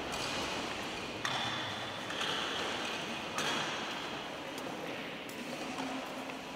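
Irregular rustling and scraping noises that start up in several sudden surges, with faint clicks and creaks and no clear pitch.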